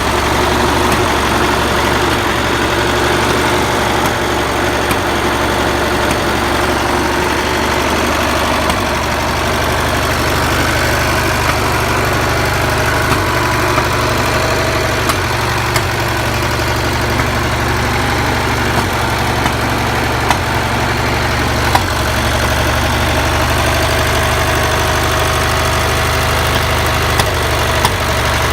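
Wisconsin VH4D air-cooled four-cylinder engine running steadily on its first run, mounted on the cutter head of a homemade sawmill.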